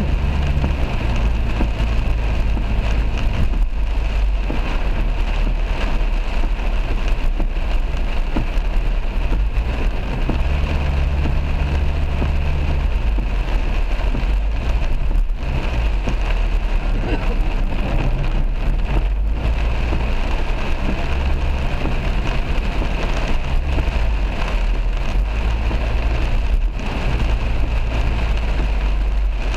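Heavy rain beating on a moving car's windscreen and roof, heard from inside the cabin, over a low rumble that swells and fades every few seconds.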